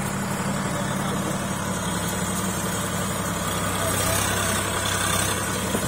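Sonalika 45 HP tractor's diesel engine running steadily under load as it drags cage wheels and a puddler through wet mud.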